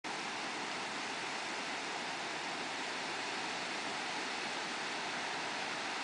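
Rushing water of a waterfall: a steady, even hiss with no change.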